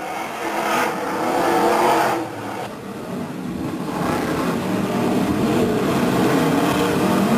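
Several BriSCA Formula One stock cars' V8 engines racing past at full throttle on a shale oval, swelling about a second in, dipping briefly, then building again and holding as the pack comes down the straight.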